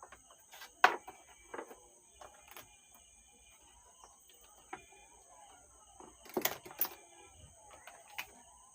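Scattered clicks and knocks from hands working on the bench, the loudest about a second in and a quick cluster around six and a half seconds. Faint birds chirp and insects drone steadily in the background.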